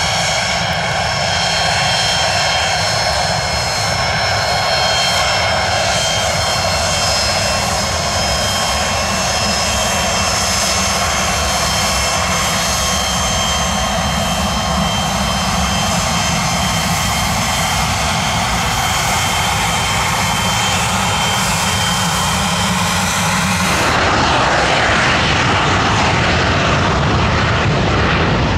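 Twin Williams FJ44 turbofans of a Pilatus PC-24 business jet running at taxi power as the jet rolls past, a steady jet roar with a high turbine whine over it. About four-fifths of the way through the sound switches abruptly to a louder, broader jet roar without the whine, from a PC-24 on its takeoff run down the runway.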